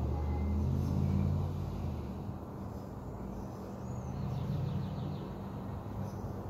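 2006 Range Rover Sport Supercharged's supercharged V8 running through an exhaust with the number 7 resonator deleted. It is revved lightly about a second in and again about four seconds in, dropping back to idle between. Faint bird chirps are heard over it.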